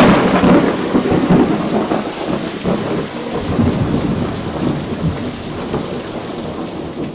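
A thunderclap rolling into a long rumble that slowly fades, over steady rain.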